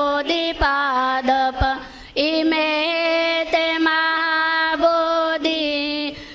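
A group of mostly women's voices chanting Buddhist devotional verses in unison on long held notes, with a short pause for breath about two seconds in.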